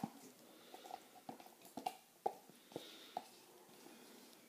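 Spatula scraping and tapping inside a plastic frosting tub to clean out the thick frosting, a string of soft, irregular clicks and squishes.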